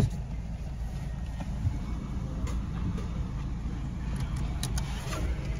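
Car engine running, a steady low rumble heard from inside the cabin, with a few faint clicks.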